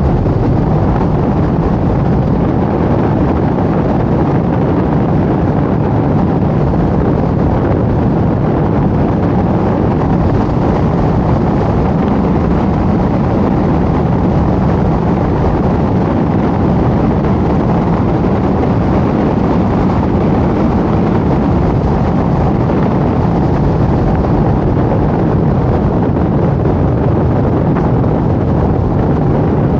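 Steady road and wind noise of a car driving at speed on a rural road, with wind rushing over the microphone.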